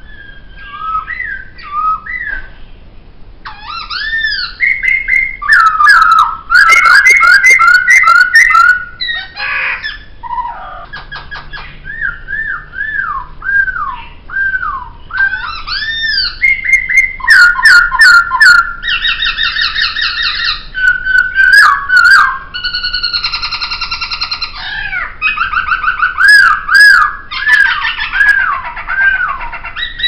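Poksay (a laughingthrush) singing a long, varied song: loud slurred whistled notes repeated in phrases, mixed with fast rattling trills.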